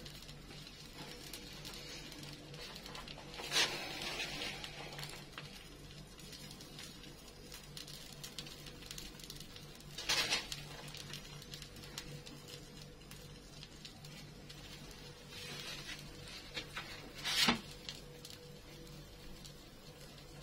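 Faint crackling and ticking of an egg and bread pizza cooking in a frying pan on low heat, with three brief louder crackles spread through it.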